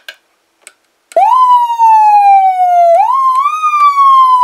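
Federal Signal PA300 electronic siren: two small switch clicks, then about a second in the siren tone shoots up and slowly slides down in pitch. About two seconds later it is pushed up again and falls off slowly once more.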